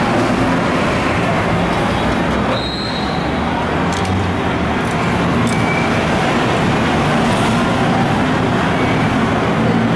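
Busy street traffic: a steady noise of passing vehicles, with a brief high-pitched squeal near three seconds in.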